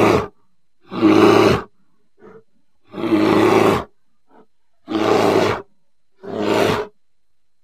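Grizzly bear roaring: a series of five short, loud roars, each under a second long, with brief silences between them and two faint short growls in the gaps.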